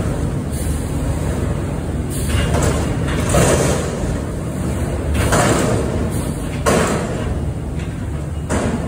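Front-load garbage truck's diesel engine and hydraulics running steadily while a raised cardboard dumpster is shaken out over the hopper, with six loud bangs and clatters about every one to two seconds.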